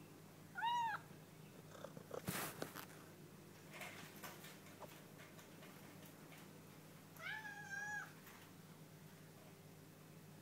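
Domestic cat meowing twice: a short, arched meow just after the start and a longer, flatter meow near eight seconds. In between come a few sharp knocks and clatters.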